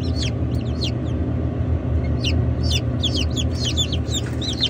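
Newly hatched chicks peeping: a couple of quick high peeps at the start, then a run of rapid peeps from about two seconds in. Under them runs a steady low machine hum.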